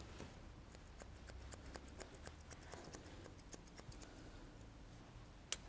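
Texturizing hair scissors snipping short hair in a quick run of sharp clicks, several a second, with one louder snip near the end.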